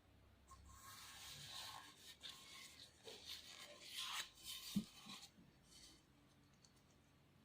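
Faint rubbing and scraping of an antique camera being handled, with one sharp click about five seconds in.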